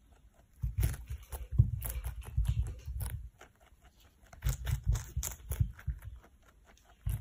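Rabbit chewing lettuce, two bouts of rapid crunching bites, the second starting about four seconds in.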